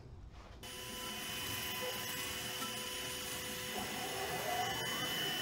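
DIY 5-axis CNC router running, starting about half a second in: a steady machine noise with a high whine that holds its pitch. From about halfway through, fainter tones rise and fall as the head moves.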